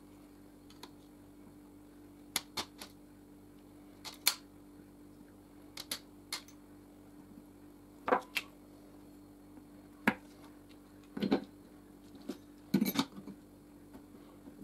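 Scattered light clicks and taps of small metal parts, screws, washers and tweezers, being picked from a parts tray and set against the engine case, about a dozen in all and some in quick pairs. A faint steady hum runs underneath.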